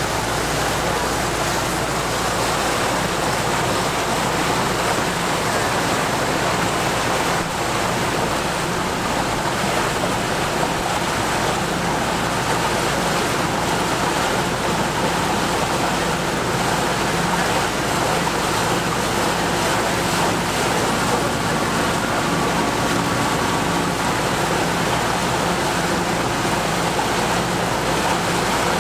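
Steady rush of water along the hull and wind across the microphone aboard a small motor launch under way, with a low steady hum from its engine underneath.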